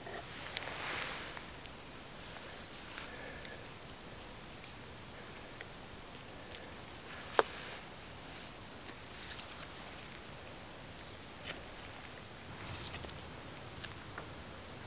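Quiet rustling and small clicks of hands handling and splitting feathers for arrow fletching, with one sharp click about seven seconds in. A thin, high, wavering bird song runs in the background for the first ten seconds or so.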